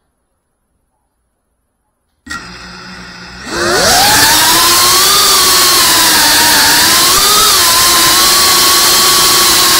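FPV quadcopter's electric motors starting suddenly about two seconds in at a low idle, then about a second later spooling up in a rising whine to a loud, steady buzz with hiss as the drone takes off. The pitch wavers up and down with the throttle.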